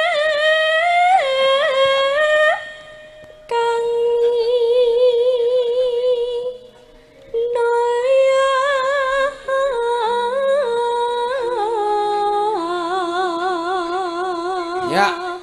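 A sinden, a female Javanese singer, singing alone into a microphone: long held notes with wide vibrato and slow ornamented turns. She pauses briefly twice, about three and seven seconds in.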